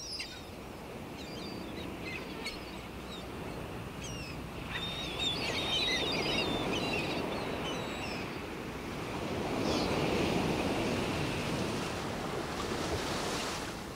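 Outdoor garden ambience: a steady rushing noise like wind, with small birds chirping now and then, most busily around five to seven seconds in.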